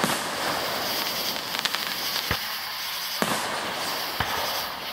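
Aerial fireworks shells bursting: about five sharp bangs, roughly a second apart, over continuous background noise.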